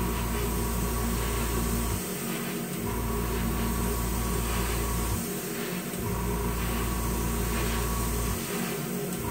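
Airbrush compressor and spray booth fan running steadily with a hum and hiss, the low hum dropping out briefly three times, about every three seconds.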